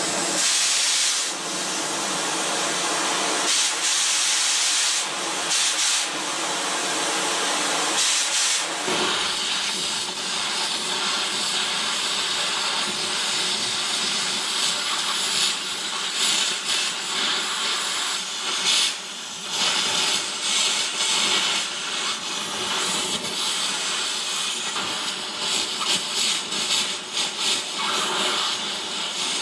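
Gas torch burning with a steady, loud hiss as its flame heats a stuck roller bearing on a round baler.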